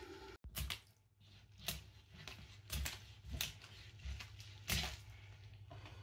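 A whole chitol fish being sliced on a boti, the upright floor blade: about six separate short wet crunches and scrapes as the fish is pushed through the blade.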